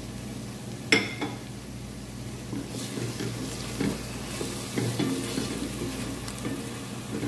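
A wooden spoon stirring blended tomato into onions frying in oil in a metal pot, with the oil sizzling and the spoon scraping the pot. A sharp knock about a second in.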